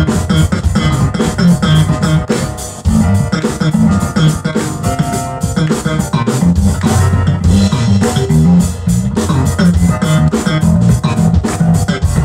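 Live band playing an instrumental stretch with electric bass, electric guitar, drum kit and keyboard over a steady drum beat. The band drops back briefly just before three seconds in, then comes back in at full volume.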